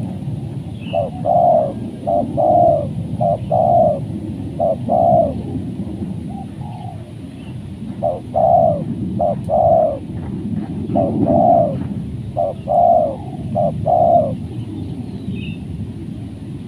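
Spotted dove cooing: repeated soft coo notes in runs, with a pause of about two seconds near the middle. A steady low rumble runs underneath.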